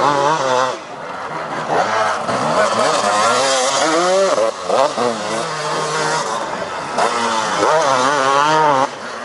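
Enduro motorcycle engine revving, its pitch rising and falling quickly over and over as the throttle is worked, dipping in loudness about a second in and again near the end.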